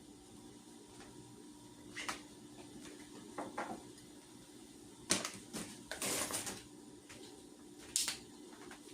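Scattered clicks and knocks of things being handled, with a short scraping rustle about six seconds in and a sharp click near the end, over a steady low hum.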